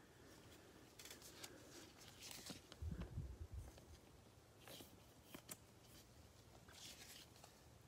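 Faint rustling and light ticks of gloved hands handling a glossy trading card, with a soft low thump about three seconds in.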